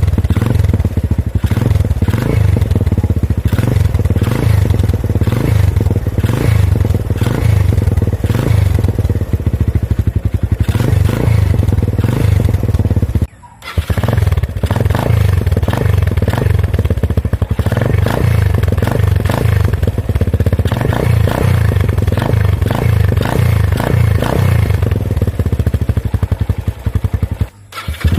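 Motorcycle engine running loud and steady through an Apido aftermarket exhaust pipe, with a fast, even exhaust pulse. The sound drops out briefly about halfway through and again near the end, splitting it into separate takes.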